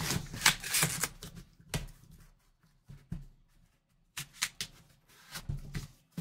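Cardboard jersey boxes being handled and shifted on a tabletop by gloved hands: an irregular run of scuffs, taps and knocks, busiest in the first two seconds and again from about four seconds in.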